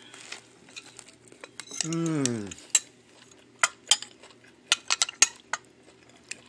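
Metal spoon clinking and tapping against a ceramic sauce bowl and plate, a string of sharp clicks through the second half. About two seconds in, a short vocal sound falling in pitch.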